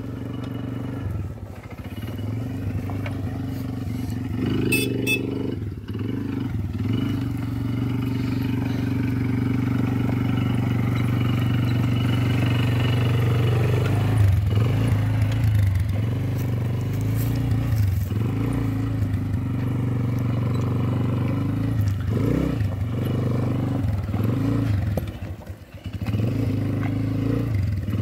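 Small engine of a youth quad (ATV) running steadily as it is ridden along a gravel trail, loudest around halfway through as it passes close, then fading as it drives away.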